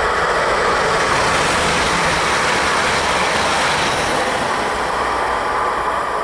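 Siemens Desiro electric multiple unit (OSE class 460) passing close by, a steady rush of wheel and rail noise that eases off a little near the end.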